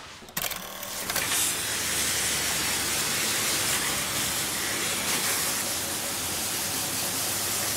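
A high-pressure water jet from a car-wash hose spraying onto a wet concrete floor, a steady hiss that starts about half a second in.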